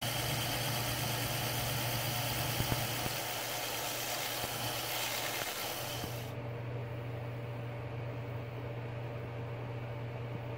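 Lathe motor running with a steady hum while an abrasive pad sands a spinning cast-resin bangle, giving an even hiss. About six seconds in the sanding hiss cuts off suddenly and the lathe's hum runs on alone.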